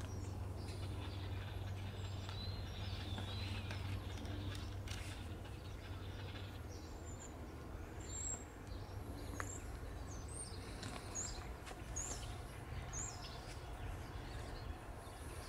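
Steady low rumble of an approaching CSX diesel freight locomotive, with birds chirping now and then, several short high chirps coming in the second half.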